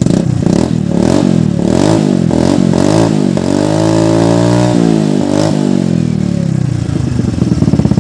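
150cc scooter's single-cylinder engine revving through an aftermarket muffler: several quick throttle blips, then one longer rev that drops back about five seconds in, settling to idle near the end.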